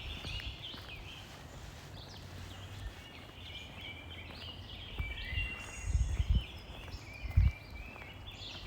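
Several songbirds singing and chirping together, many short high calls overlapping throughout. A few dull low thumps in the second half.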